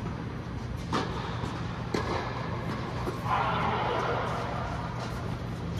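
Two sharp tennis ball impacts about a second apart, over a steady low hum in an indoor tennis bubble, with distant voices around the middle.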